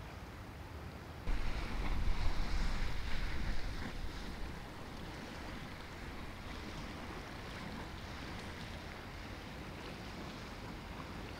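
Wind gusting over the microphone: a sudden, loud low rumble starting about a second in and easing off after about three seconds, then a steady breeze hiss.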